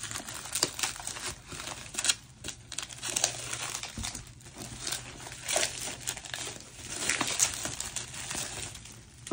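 Plastic album wrapping crinkling and tearing as it is handled and pulled open, in an irregular run of crackles.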